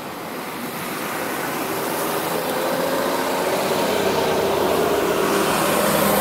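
A car driving slowly past at close range, its engine and tyre noise growing steadily louder.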